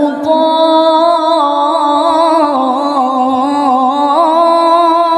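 Woman reciting the Qur'an in melodic tilawah style, drawing out one long vowel on a single held phrase with wavering, ornamented turns in pitch.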